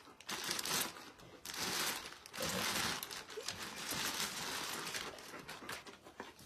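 Clear plastic wrapping crinkling and rustling in a series of bursts as it is pulled off a sword.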